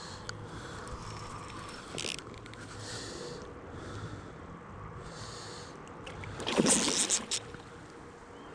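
Hooked pike thrashing and splashing at the water's surface close to the bank, loudest about six and a half seconds in, with quieter sloshing of water before it.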